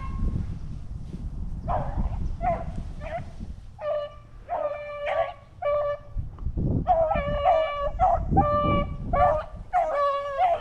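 Rabbit-hunting hounds baying in chase on a jumped rabbit's track: repeated short, ringing calls, a few scattered at first, then coming steadily, several a second, from a little past halfway. A low rumble of wind or handling noise on the microphone runs underneath.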